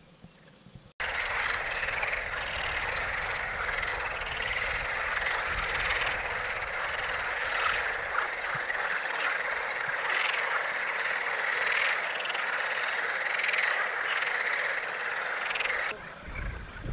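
Dense chorus of many frogs croaking, cutting in suddenly about a second in and falling away near the end.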